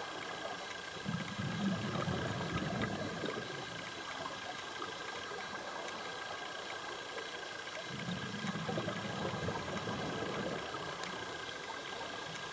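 Underwater scuba breathing: a diver's regulator exhaust bubbles rumble out twice, about a second in and again around eight seconds in, each lasting a couple of seconds. Between them there is a steady underwater hiss with a thin high tone and scattered small clicks.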